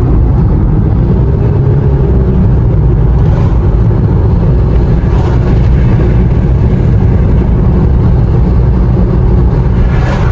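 Steady low rumble of road and engine noise inside a moving Nissan car's cabin.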